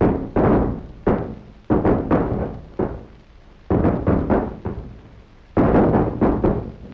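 Sledgehammers and pickaxes striking concrete and masonry during demolition: about ten heavy, irregular blows in clusters, each starting suddenly and dying away with an echo, with brief lulls between the clusters.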